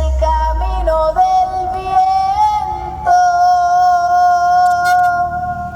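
Music with a synthesized, voice-like lead melody played through a car audio system. Deep bass fades away in the first second, and the melody settles into a long held note about three seconds in.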